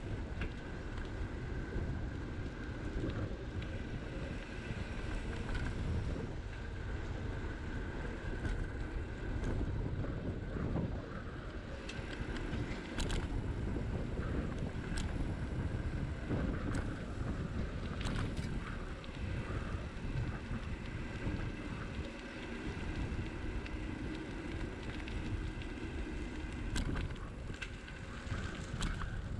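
Wind buffeting the microphone of a moving bicycle, a steady low rushing rumble, with a few sharp clicks scattered through.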